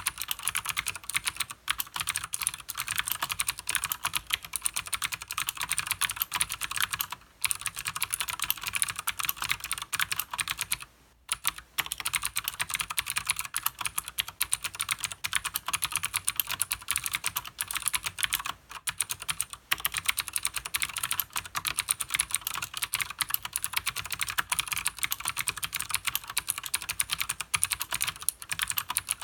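Fast continuous typing on a Leopold FC900R mechanical keyboard with clicky Cherry MX Blue switches and PBT keycaps: a dense run of sharp key clicks, with brief pauses about 7, 11 and 19 seconds in.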